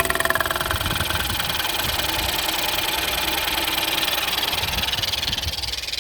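Ford 1.0 EcoBoost three-cylinder turbo petrol engine idling just after start-up, with a rapid, steady tapping over the running sound.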